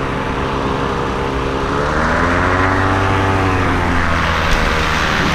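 Airboat engine and propeller running steadily, rising in pitch about two seconds in and then easing back down.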